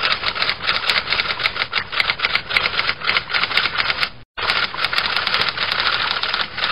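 Typewriter sound effect: rapid, continuous key clicks that stop briefly a little past four seconds in, then carry on.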